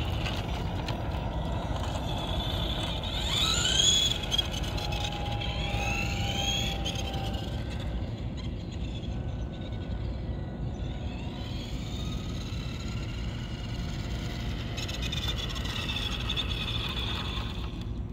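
Tamiya Blackfoot electric RC monster truck driving: its motor and gears whine, rising in pitch as it speeds up and falling as it slows, several times over, loudest about four seconds in, over a steady low rumble.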